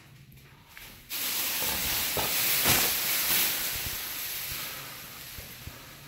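Plastic sheeting rustling and brushing against the phone: a sudden loud rushing hiss with a few crackles starts about a second in, then fades away over the next few seconds.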